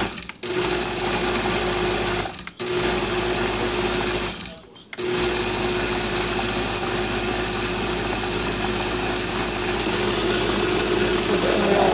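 Countertop blender with a glass jar pulsing on low, its motor pureeing thick cooked butternut squash soup. The motor cuts out briefly three times in the first five seconds, then runs steadily.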